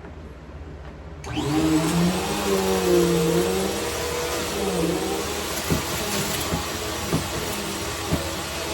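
Vacuum cleaner switched on about a second in, its motor running with a hum that wavers in pitch. A few sharp clicks come in the second half.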